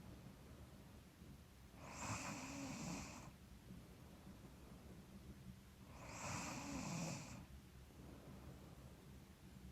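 A sleeping woman snoring softly: two slow snoring breaths about four seconds apart, each a little over a second long, with a low wavering rattle under the breath noise. She puts the snoring down to being a little stuffy.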